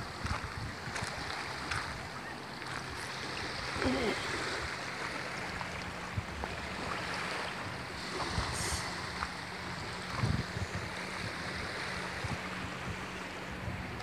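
Small waves lapping against a pebble shore, with wind on the microphone and a faint steady low hum underneath.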